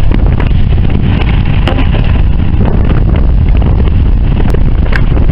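Wind buffeting the microphone on a small boat at sea: a loud, steady low rumble, with a few sharp clicks.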